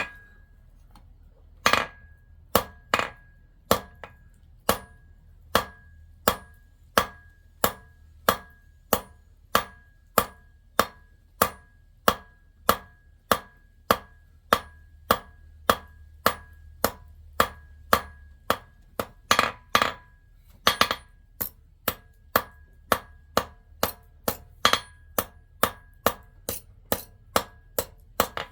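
Steady hammer blows on silver being forged into a ring, metal on metal, about three blows every two seconds, each leaving a short bright ring.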